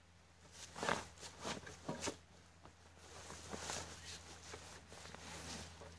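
Rustling and shuffling in dry fallen leaves with light knocks as camping-cot parts are handled, the loudest rustles about one and two seconds in.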